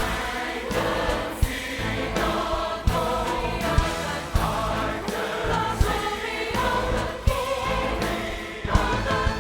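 Large choir singing a Christmas song with musical accompaniment, with short low drum hits recurring about once a second.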